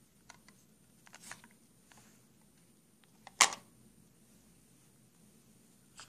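Paper and cardboard packaging of an iPhone box being handled: faint scattered rustles and light taps, with one sharp, much louder tap about three and a half seconds in.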